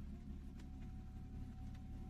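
Jaguar XF diesel engine idling steadily as a low, even hum, with its cylinder 1 misfire cured. Faint ticks sound over it, and a thin steady tone comes in just after the start.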